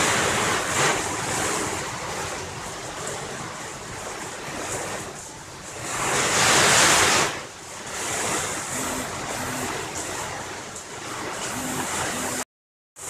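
Strong wind and heavy rain rushing steadily, swelling into a loud gust about six seconds in. The sound cuts out for a moment near the end.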